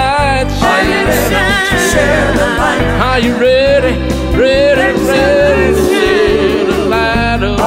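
Gospel-rock song: a full band under singing with long, sliding, drawn-out notes.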